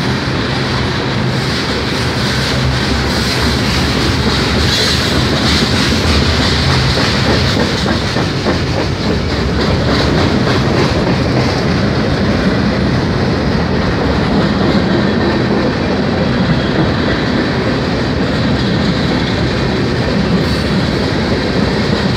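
Freight train cars (covered hoppers, a tank car, boxcars) rolling past, a loud steady rumble of steel wheels on the rails with repeated clacking.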